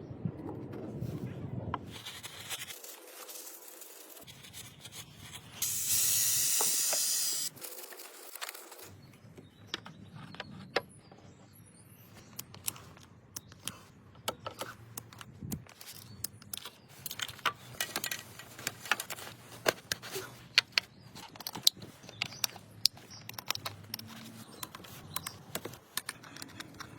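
A short hiss of an aerosol spray can, about two seconds long, roughly six seconds in. It is followed by many scattered clicks and taps of tools and parts being handled in a car repair.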